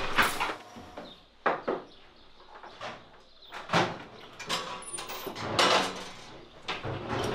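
A series of sharp, irregular knocks and thumps, about half a dozen over several seconds, with quieter scuffing and rustling between them, typical of doors and bodies moving about a room.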